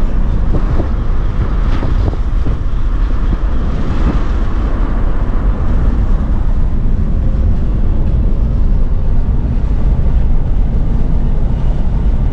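A car driving along a road: a steady, heavy low rumble of tyre, road and engine noise.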